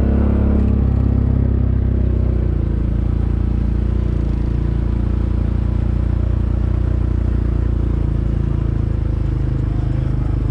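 Honda ATV's single-cylinder engine running steadily at low trail speed, easing off slightly a couple of seconds in.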